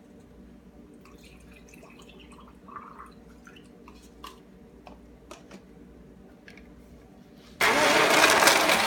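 Faint clicks and taps of a plastic personal blender cup being handled, over a low steady hum. About seven and a half seconds in, a loud steady rushing noise starts abruptly and is much the loudest sound.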